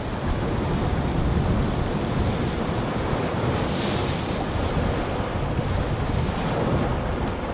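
Shallow surf washing in over sand between shore rocks and draining back, a steady rush of water heard close at water level, with wind rumbling on the microphone.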